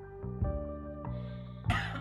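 Gentle plucked guitar music, with a single short cough cutting in near the end.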